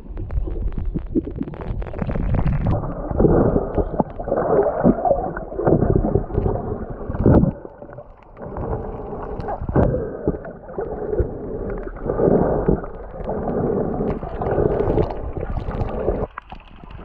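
Muffled rushing and gurgling of water heard through a camera held underwater, swelling and falling in irregular surges every second or two.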